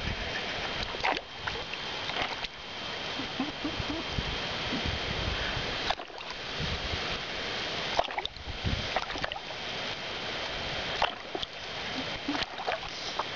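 Water in a small basin splashing and sloshing as a cat paws into it, swiping after fish, with several brief sharp splashes over a steady noisy background. A faint steady high tone sits behind it.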